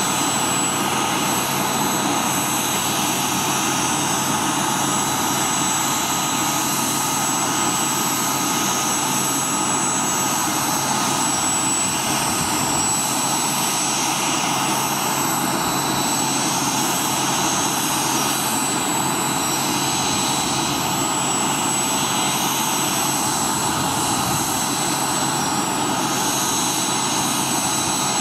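Boeing CH-47 Chinook's twin turboshaft engines running steadily on the ground during start-up: a constant high turbine whine over a steady rushing noise.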